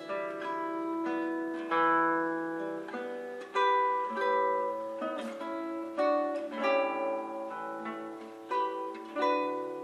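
Background music: a plucked string instrument playing a melody, each note starting sharply and ringing out as it fades.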